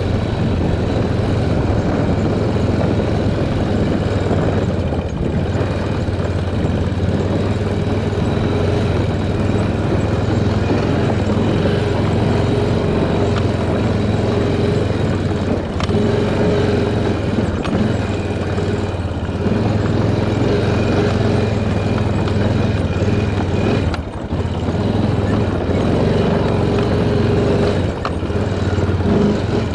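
Honda Rincon ATV's single-cylinder engine running steadily as the quad is ridden over a rocky trail. The loudness dips briefly a few times.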